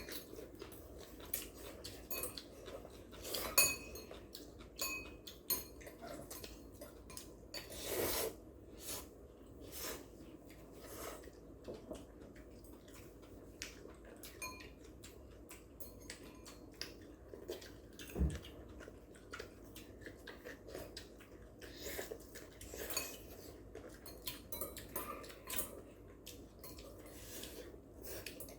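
Eating utensils clinking and scraping against bowls and plates during a meal, a scatter of short sharp clicks at irregular intervals, with a dull thump about 18 seconds in.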